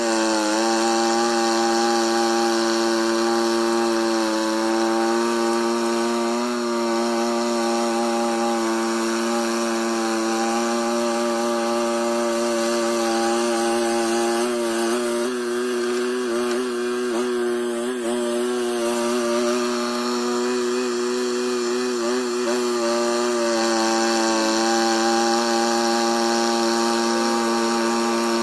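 Derette T800 mini skid steer loader with its tiller attachment, running at a steady high throttle: a constant pitched drone that sags slightly a few times.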